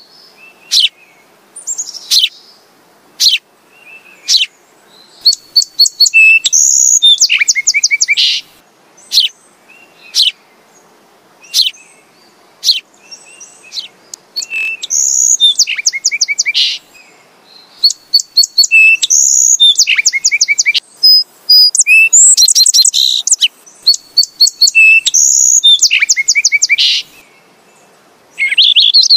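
House sparrow chirping: single sharp chirps spaced about a second apart, then several rapid runs of chirps in quick succession.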